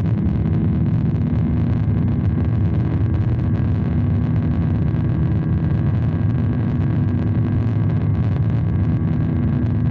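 Cabin noise of a Boeing 737-800 at takeoff thrust from its CFM56-7B jet engines, heard through the cabin over the wing just after lift-off and into the initial climb. It is a loud, steady rush with a low drone and a few steady humming tones.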